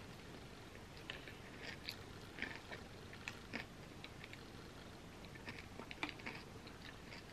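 A person chewing a mouthful of gooey chocolate cookie pizza close to the microphone: faint, irregular mouth clicks and smacks.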